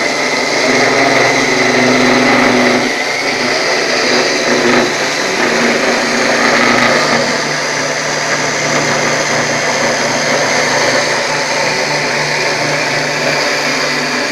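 Spindle motor of a home-made CNC machine running steadily while the bit cuts, a constant motor whine under rough cutting noise that changes character about three seconds in and again around seven seconds as the cut moves.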